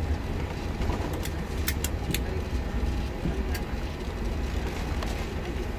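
Steady low rumble of cabin noise inside an Emirates Airbus A380 rolling along the taxiway after landing, heard from a passenger seat. A few sharp clicks come between about one and three and a half seconds in.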